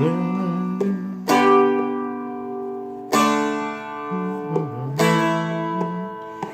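Seagull Merlin M4, a four-string fretted diatonic instrument, strummed with a pick: four ringing chords a second or two apart, each left to fade, playing the opening of a verse in D.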